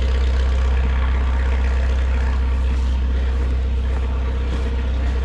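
Old spark-ignition tractor engine idling steadily in the cold, just after a cold start.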